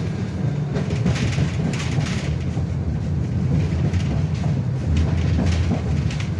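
A KTM tram running along the track, heard from inside the car: a steady low rumble of wheels and running gear with a few brief rattles.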